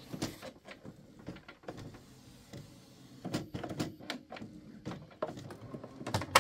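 Canon Pixma iX6850 inkjet printer running its first power-on start-up: the print-head carriage motor drives the carriage back and forward, with a low hum and irregular clicks and knocks. A sharp knock comes near the end.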